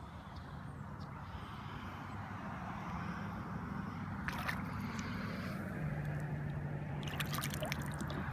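River water trickling and sloshing at the bank, slowly growing louder. A few sharp clicks are heard about four seconds in and again near the end, and a low steady hum sets in over the second half.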